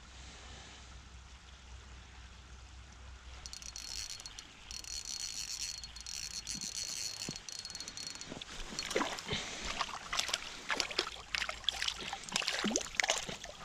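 Hooked trout splashing and thrashing at the lake surface as it is brought to the landing net: a run of quick, irregular splashes in the last few seconds. Before that, a steady high hiss starts and stops abruptly.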